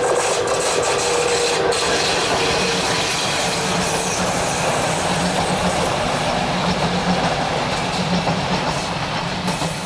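Express passenger train running past close by behind a Czech class 350 electric locomotive, the coaches' wheels rolling steadily along the track. The noise starts to fade near the end as the last coach goes by.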